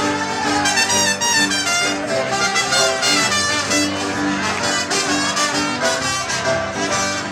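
Live folk band playing an instrumental passage, fast runs of notes over a held chord, with no singing.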